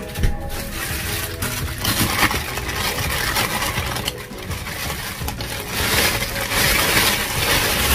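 Thin clear plastic bag crinkling and rustling as it is handled and opened around bread rolls, louder near the end.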